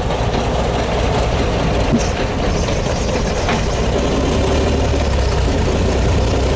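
1907 Stevens Duryea Model U's 360-cubic-inch inline six-cylinder engine running steadily as the car drives slowly, a low even rumble heard from the open seat.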